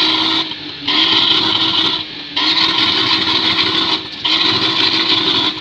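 BMW 3 Series saloon's exhaust blaring as the engine is revved and held at high rpm, let off briefly three times and brought straight back up. This is a stationary exhaust noise test at the tailpipe.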